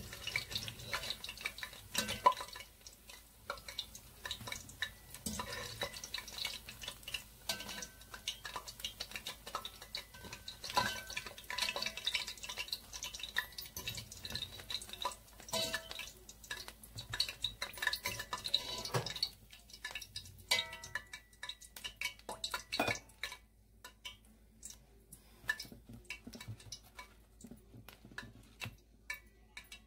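Pholourie frying in hot oil with a crackling sizzle, while a metal spoon and fork clink and scrape against the pot as the fritters are lifted out. About two-thirds of the way in, the sizzle and clatter die down to a few scattered clicks.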